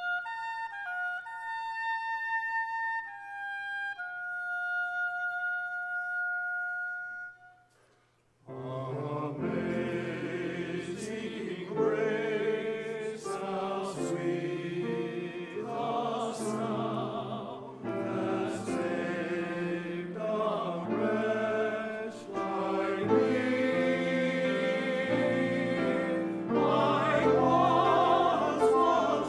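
A solo woodwind plays a slow melodic line for about seven seconds, then stops for a moment. A mixed church choir then enters, singing the anthem with piano accompaniment.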